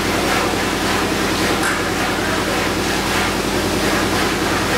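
Pressure discharge cooker plant running: a steady rushing noise over a low, even electrical hum.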